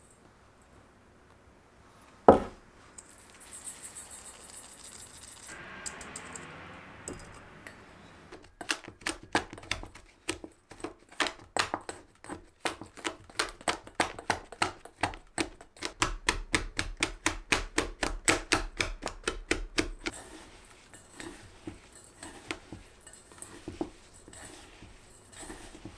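A utensil beating against a bowl while mixing, in a steady run of clicking strokes about three to four a second that stops about twenty seconds in. Lighter scattered clicks follow it. A single sharp knock comes about two seconds in.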